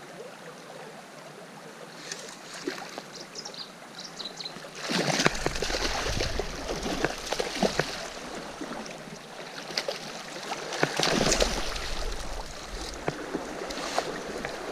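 Hooked trout splashing and thrashing at the water's surface as it is played and drawn into a landing net, over the steady run of a shallow stream. The splashing starts about five seconds in and comes in two louder spells.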